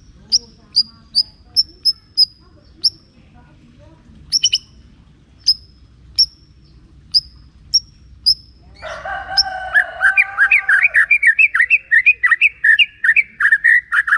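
White-rumped shama calling with a string of short, sharp, high notes at uneven intervals. About nine seconds in, it breaks into a rich, fast warbling song of many rapid notes.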